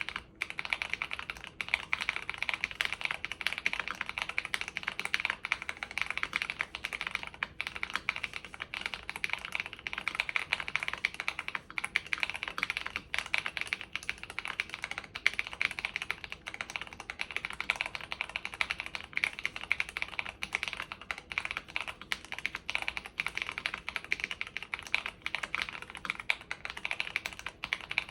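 Ikki68 mechanical keyboard being typed on quickly and continuously: a dense stream of key clicks and clacks.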